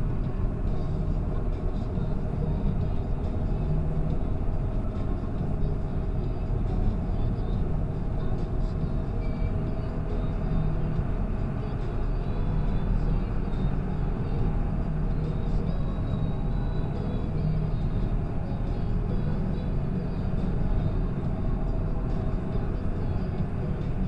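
John Deere 7530 tractor's six-cylinder diesel engine running steadily while driving on the road, heard from inside the cab.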